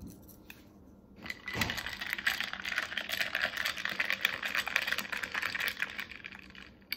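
Ice cubes rattling and clinking against a tall glass as an iced coffee is stirred fast with a paper straw. A rapid, continuous clatter starts about a second in and dies away about six seconds in.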